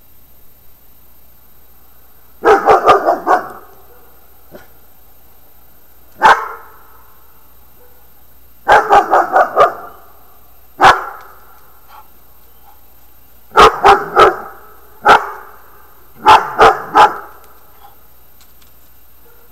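A dog barking in bouts: quick runs of three to five barks alternating with single barks, about seven bouts in all.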